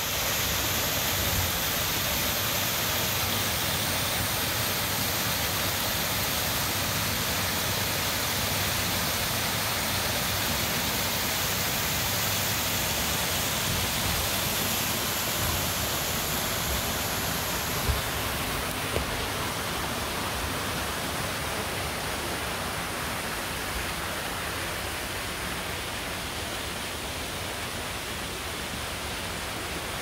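Small cascading waterfall rushing over rock into a pool, a steady even hiss of falling water that eases a little over the second half.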